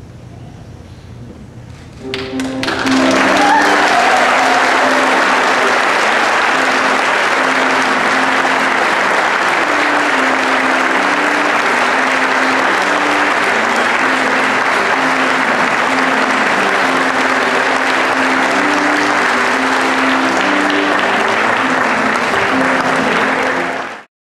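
A congregation breaks into loud, sustained applause about two seconds in, with instrumental music playing a slow melody of held notes beneath it; both fade out together near the end.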